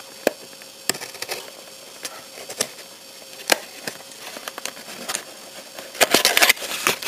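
Hobby knife slitting the seals of a small cardboard kit box: scattered light clicks and taps. About six seconds in comes a short burst of cardboard rustling and scraping as the box is turned over and opened.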